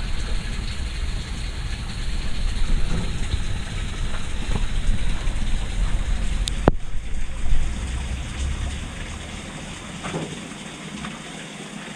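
Water splashing and trickling as small freshly caught fish are put into a container of water, with wind rumbling on the microphone. There is a single sharp click a little past halfway, and the sound eases off over the last couple of seconds.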